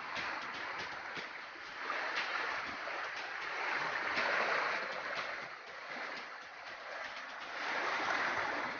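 Rushing flowing water, swelling louder about two, four and eight seconds in, with small clicks and knocks over it.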